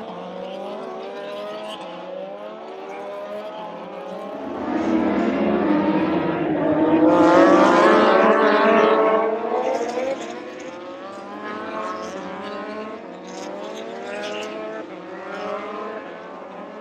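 Racing motorcycles going round the circuit, engine pitch climbing through the gears and dropping back at each shift, with the loudest bike passing about five to ten seconds in.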